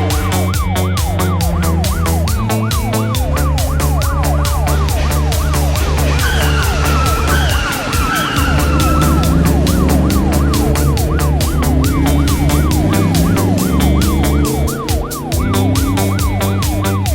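A fast-sweeping, siren-like wail going up and down about five times a second, over background music with a steady beat and bass. A few short falling whistle-like glides come in about halfway through.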